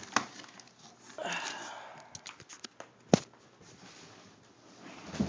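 Hands handling a heavy subwoofer and its packaging: rustling, scattered small clicks, a sharp knock about three seconds in and a dull thump near the end.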